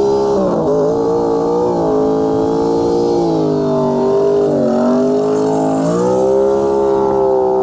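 Two-door Chevrolet Tahoe's engine running under changing throttle, its pitch dipping about half a second in and again around the middle, then climbing about six seconds in.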